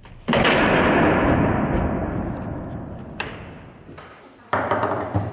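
Table soccer goal: a sudden loud bang as the ball is shot in, then a long noisy wash that fades over about four seconds. Near the end come sharp clacks of ball and rods on the foosball table.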